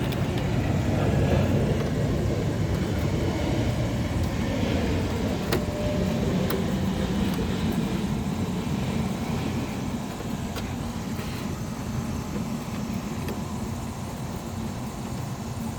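Low steady rumble of a motor vehicle running nearby, slowly fading, with a few faint clicks.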